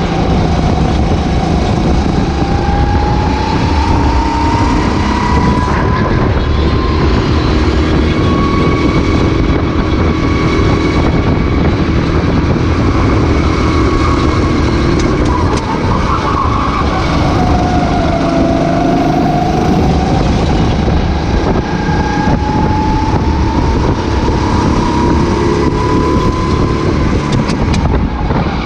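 Racing kart engine at full race pace, heard onboard: its pitch climbs slowly along a straight, drops sharply about halfway through as it slows for a corner, then climbs again and drops once more near the end, over a heavy rush of wind and chassis noise.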